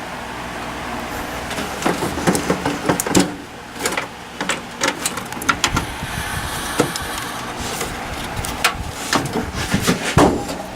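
Irregular clicks, knocks and rattles of hands working on a desktop PC, connecting parts to it, over a steady low hum.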